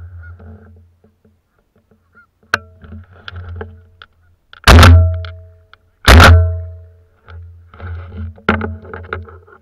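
Two shotgun shots about a second and a half apart, each very loud and ringing away for nearly a second.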